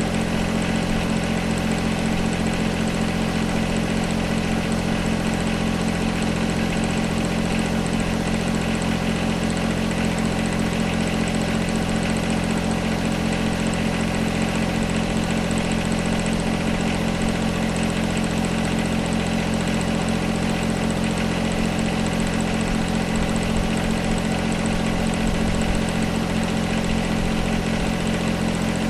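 John Deere 1025R compact tractor's three-cylinder diesel engine running steadily at low throttle while it pushes dirt with its blade.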